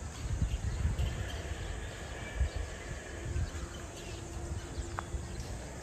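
Outdoor ambience: a steady low rumble with a few low thumps on the microphone, and faint chirping, with one short sharp chirp near the end.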